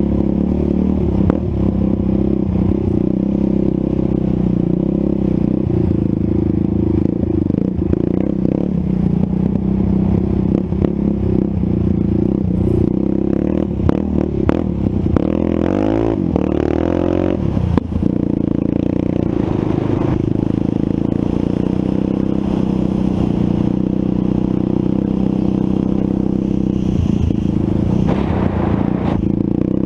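Quad ATV engine running steadily under throttle, with rattling and clattering from the machine over bumps. About halfway through the engine revs up and down quickly several times.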